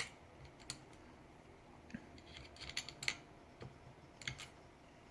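Faint, scattered clicks and taps of screws and small parts being handled during reassembly of a DeWalt reciprocating saw, with a small cluster of clicks about halfway through.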